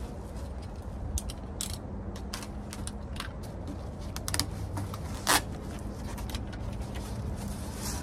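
Plastic wrap on a bundle of foam insulation boards being handled and opened: scattered crinkles and clicks, with one sharper snap about five seconds in, over a low steady rumble.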